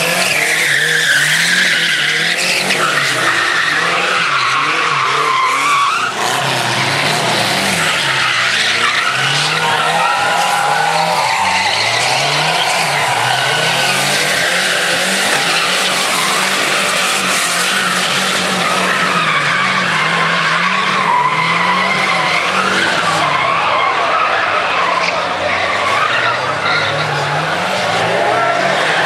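Modified Chevrolet Chevettes spinning donuts and burnouts, their tyres squealing and scrubbing without a break. Their engines are revved up and down over and over.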